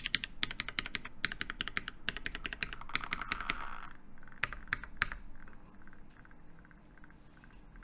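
Typing on a custom mechanical keyboard with lubed Hyperglide MX Black linear switches on a brass plate, under GMK keycaps: quick runs of sharp key clicks that thin out and stop about five seconds in, leaving only faint ticks.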